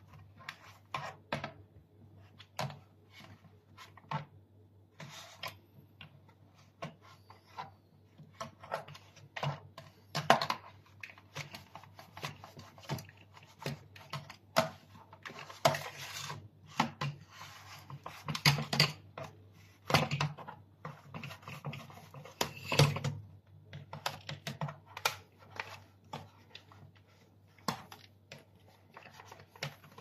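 Irregular clicks, taps and short scrapes of a long flat-blade screwdriver and a paper towel being worked against the plastic housing of a Dyson cleaner head's brush-bar compartment, wiping dirt from around the brush-bar motor.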